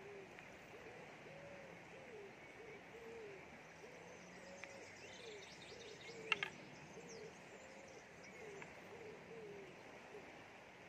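A bird calling in a long run of short, low, cooing notes, about two a second, over a faint steady hiss of running river water. A single sharp knock sounds about six seconds in.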